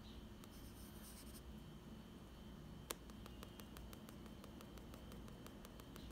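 Faint scratching of a pencil shading on sketchbook paper, with one sharp tap about halfway through followed by a run of quick, light ticks.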